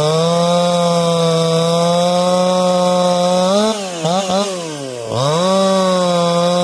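A new G372XP two-stroke chainsaw cutting a log at full throttle, its engine note held steady under load during break-in. About three and a half seconds in, the bar comes out of the wood: the revs jump up, are blipped, and sink toward idle. The throttle then opens again and the saw goes back to its steady cutting note.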